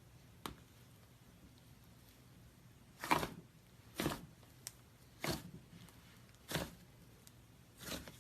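Slime being squeezed and poked, giving about five short squelching pops spaced a second or so apart.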